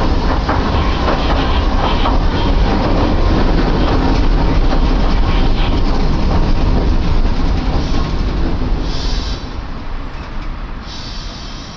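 Iyotetsu streetcar running on its rails, heard from inside the car: a steady low rumble with occasional clicks, growing quieter near the end.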